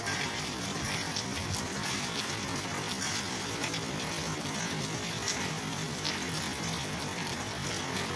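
Steady heavy rain falling: a dense even hiss made of countless small drop ticks.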